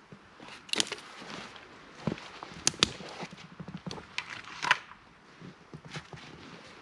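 Footsteps crunching through snow among fallen spruce branches: a handful of irregular crunches and sharp twig clicks.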